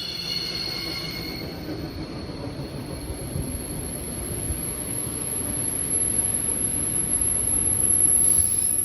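ED4M electric train's brakes squealing as several high tones that fade out within the first second or so. The low rumble of the train on the rails follows, swelling slightly near the end.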